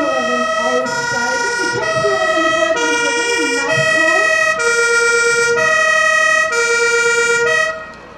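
Fire engine's German two-tone siren (Martinshorn) sounding as the truck drives up, its high and low notes alternating a little faster than once a second. It is switched off suddenly near the end.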